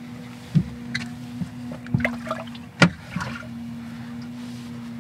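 Steady hum of a boat motor running while trolling, with a few sharp knocks and taps from a fish being handled on a measuring board in an aluminium boat. The loudest knock comes about three seconds in.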